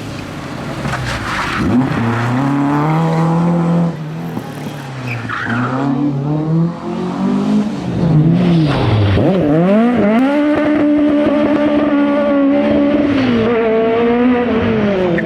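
Rally car engine revving hard. The pitch falls and climbs again several times, then holds steady at high revs for about four seconds before dropping near the end.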